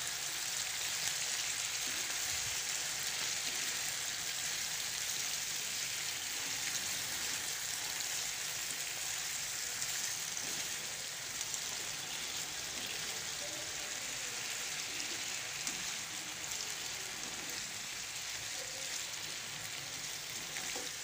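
Sliced potatoes frying in hot oil in a pan, with a steady, even sizzle.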